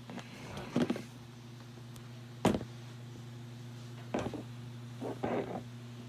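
A few short knocks and bumps of plastic toys being handled, the sharpest about two and a half seconds in, over a steady low hum.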